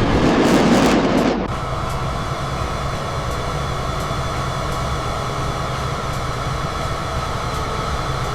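Jet aircraft in flight: a loud rushing swell over the first second and a half, then a steady engine drone with a faint held whine.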